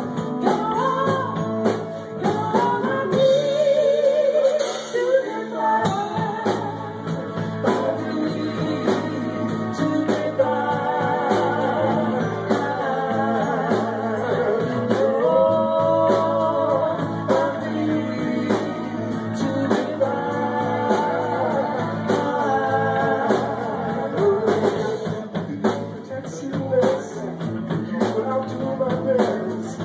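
Live band playing a song with a singer, the voice holding long wavering notes over the band.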